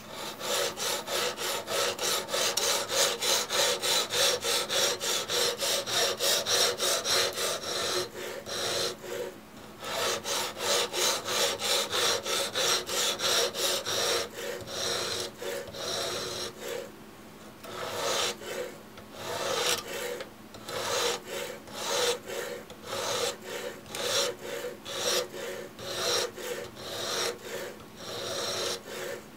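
Sharpening stone on a guided-rod knife sharpener stroked back and forth along a steel knife edge, in quick even strokes about three a second, pausing briefly twice.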